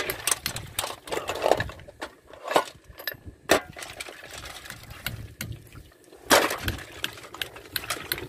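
Steel planetary gear parts from an excavator final drive clinking and knocking against each other and the metal basin as they are handled in a bath of diesel wash, with some sloshing of the liquid. The knocks come irregularly, with a louder rattle and slosh just past six seconds.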